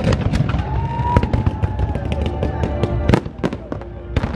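Fireworks display: a dense run of shell bursts and crackling bangs, several each second, over a continuous low rumble. It grows louder about half a second in.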